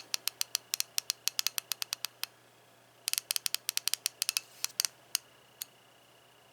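Carlyle P90 series 3/8-drive, 90-tooth ratchet clicking as it is worked by hand. There are two runs of quick, even clicks, about nine a second, the second starting about three seconds in, followed by a few single clicks.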